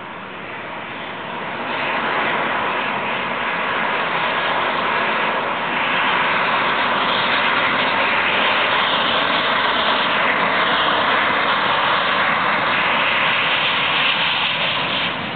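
Boeing 737-800 airliner's CFM56-7B jet engines on final approach to land, a steady rushing jet noise. It grows louder about two seconds in and again around six seconds as the plane comes close, then drops off near the end as it passes.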